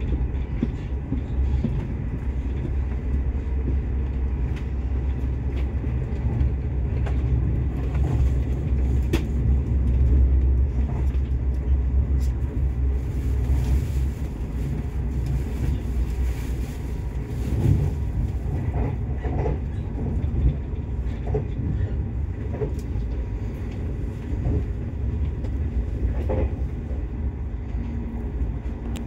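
Passenger train running along the rails, heard from inside the carriage: a steady low rumble with a few light clicks.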